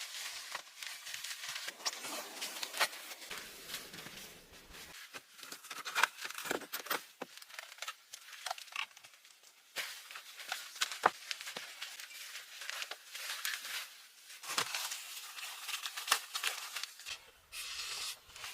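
Irregular rustling and crinkling with many light clicks and a few sharper knocks, as of something being handled at close range.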